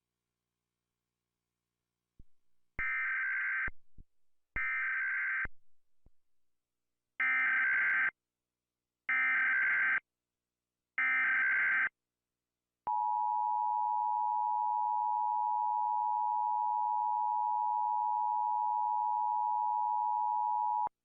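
Emergency Alert System alarm: five short bursts of warbling data tones, about a second each (the first two fainter), followed by the steady two-tone attention signal held for about eight seconds and cut off suddenly.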